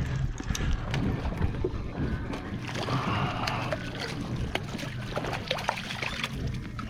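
Background sound on a small fishing boat at sea: a steady low rumble of wind and water, with scattered small knocks and clicks.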